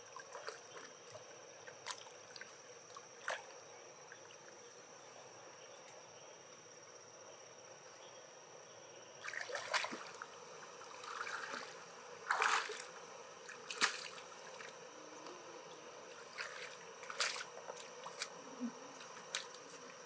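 Water dripping and splashing, with scattered sharp clicks, from a wet freshwater mussel being handled. It is sparse for the first half, then busier from about halfway through. A steady high-pitched tone runs underneath.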